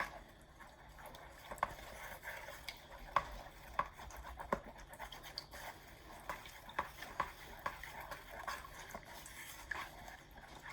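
A spoon stirring a sticky mix of gelatin water and corn syrup in a bowl, scraping and knocking against the bowl in irregular clicks, about two a second.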